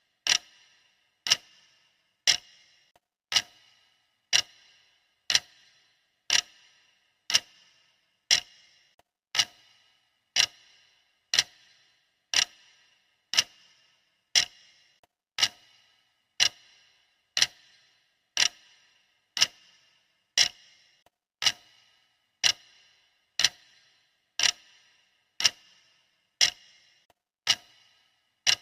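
Clock ticking steadily, one sharp tick a second, each tick with a short ringing decay.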